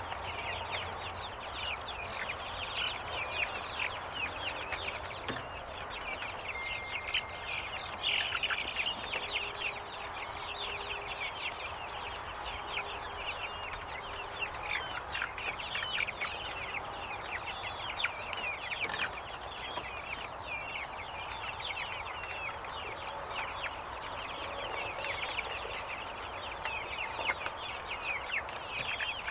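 Outdoor insect chorus: a steady high-pitched drone of insects, with many short chirps scattered over it.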